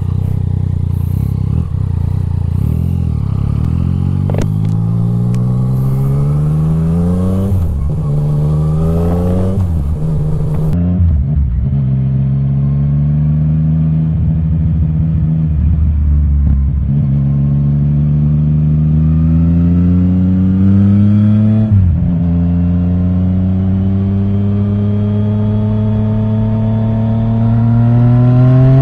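Yamaha Tracer 900 GT's inline-three engine through an Akrapovic titanium exhaust with the dB killer removed, accelerating through the gears. Its pitch climbs steadily through each gear and drops sharply at each upshift, several times over.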